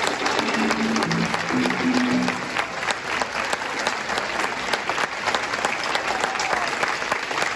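Audience applauding with dense, steady clapping. A few short, low held tones sound in the first two seconds or so.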